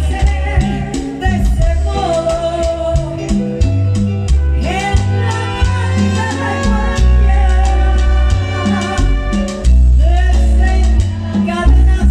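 Live Latin band playing salsa with a woman singing lead into a microphone, over a bass line that moves in repeating notes and busy percussion.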